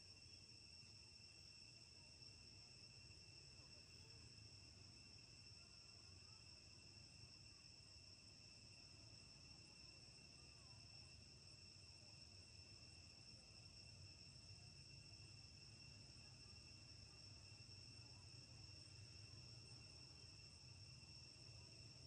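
Faint, steady, high-pitched insect chorus, two unchanging tones, with a low hum underneath.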